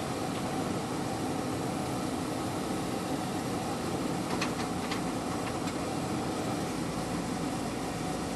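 JCB 3DX backhoe loader's diesel engine running steadily under work, with a few sharp metallic knocks about four to five seconds in.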